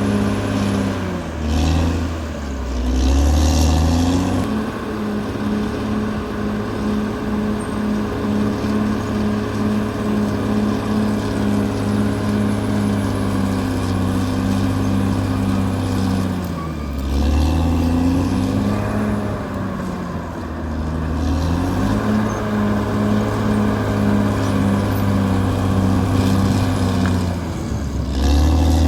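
Caterpillar D6R XL bulldozer's diesel engine working under load. Its pitch sags and recovers several times: about two seconds in, around seventeen and twenty seconds, and again near the end.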